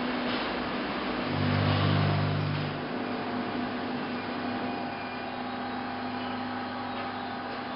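Concrete block plant machinery running in the production hall with a steady electric hum. A deeper motor drone comes in just after a second and stops before the three-second mark.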